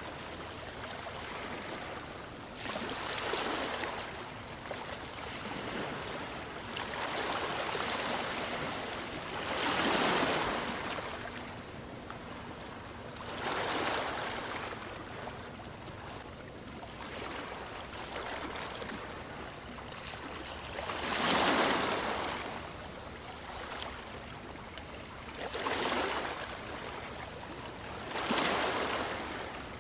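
Ocean surf breaking on a beach: a steady wash of water with waves swelling up and falling away every few seconds, the loudest about twenty-one seconds in.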